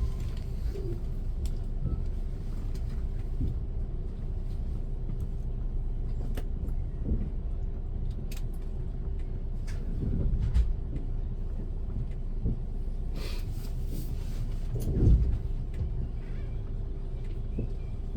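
Train running on its rails, heard from inside the carriage: a steady low rumble under a constant hum, with scattered clicks and two louder thumps, about ten and fifteen seconds in.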